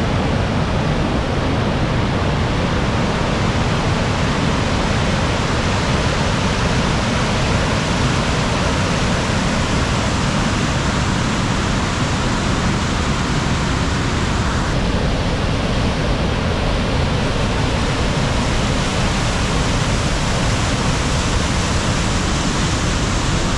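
Waterfall on the Akerselva river, water rushing in a loud, steady roar of noise.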